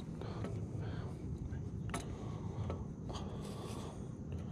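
Close handling noise from fingers working a soft-plastic bait and rig by the chest-mounted camera: small scattered clicks and rubs over a low steady rumble.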